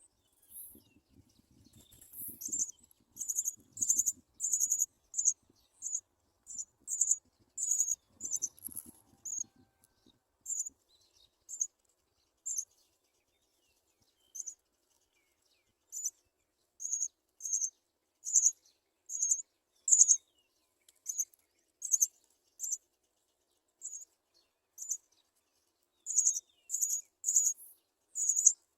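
House sparrow chirping: short, high-pitched chirps repeated irregularly, about one or two a second, with faint rustling in roughly the first ten seconds.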